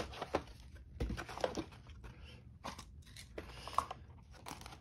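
Cardboard lid of a vintage Monogram plastic model kit box being worked off by hand. Irregular scrapes, rubs and taps of the cardboard are heard, with a sharp one right at the start.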